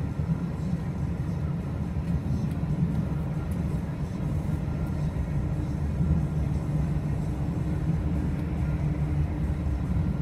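Several BNSF diesel-electric freight locomotives passing close at slow speed, a steady low engine drone and rumble.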